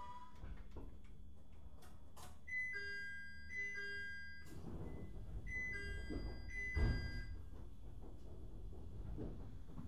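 Two groups of short, repeated two-note electronic chimes over a steady low rumble inside a 701-series electric train. A dull thump comes just before seven seconds in.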